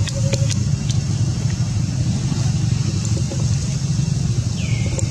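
Steady low rumble with a faint hiss above it, a few soft clicks near the start and a short high chirp near the end.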